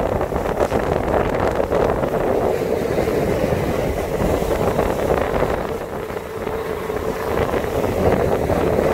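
Motorboat under way: steady engine noise, with a faint steady tone, mixed with wind buffeting the microphone and water rushing and splashing past the hull.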